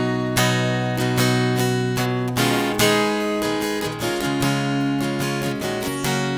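Acoustic guitar strummed in a steady rhythm, ringing chords in an instrumental intro with no singing yet.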